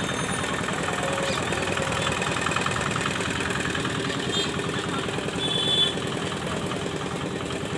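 An engine idling steadily amid street noise.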